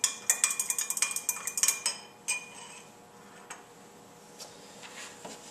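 Stirring rod clinking rapidly against the inside of a glass beaker as a salt sample is stirred into solution. The clinking stops about two seconds in, with one last tap, and a few faint taps follow.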